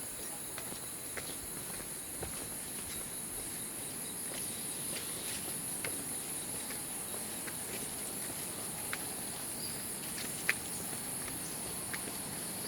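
A steady, high-pitched insect chorus chirring with a fast pulse, joined by occasional faint clicks or ticks.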